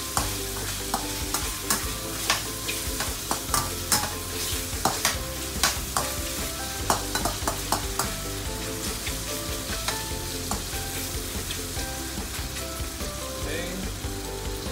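Garlic, dried meat and fish cake sizzling in oil in a stainless steel wok, with a metal ladle scraping and clinking against the pan as they are stirred. The clinks come thick and fast in the first half and thin out later.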